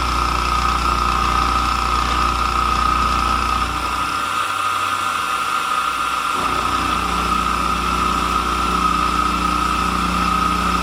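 Converted Sieg SX2.7 CNC mill face milling a plate with a roughing end mill at a 300 mm/min feed: the spindle and cutter run in a steady cut with a constant high whine. The low hum under it drops away for about two seconds midway, then returns.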